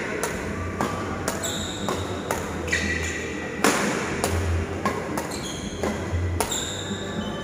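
Badminton rackets hitting shuttlecocks in a fast drill, a sharp crack about every half second, with sports shoes squeaking briefly on the court several times as the player lunges and recovers.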